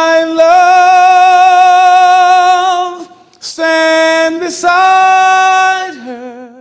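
A man singing unaccompanied into a microphone, holding long high notes: a long one of about three seconds that steps up slightly, a short break, then two shorter held notes, and near the end a lower note sung with vibrato.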